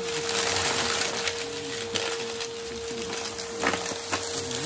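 Bissell upright vacuum cleaner running with a steady hum as it is pushed into a pile of dumped debris on carpet. A rushing hiss over the first second or so, then scattered crunching clicks and cracks as pieces are sucked up, the sharpest crack a little after halfway.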